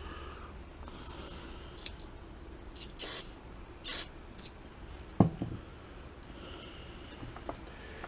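Small motorcycle carburetor parts handled on a workbench: light clicks and taps, with one sharp knock about five seconds in. Two short hissing bursts come near the start and about two-thirds of the way through.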